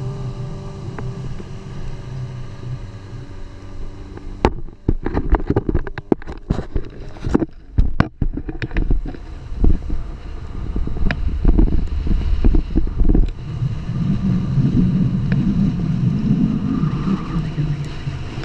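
Off-road vehicle's engine running steadily. A run of loud knocks and rattles close to the microphone follows for several seconds, then gusty wind on the microphone as the vehicle drives.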